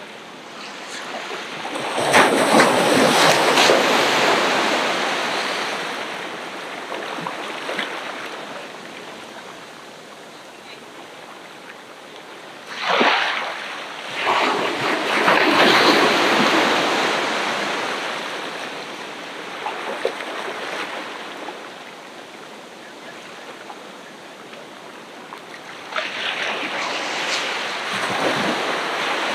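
Ocean waves breaking on the beach. Each wave swells into a rush of surf and washes back, with quieter lulls of several seconds between, and one sharper crash about halfway through.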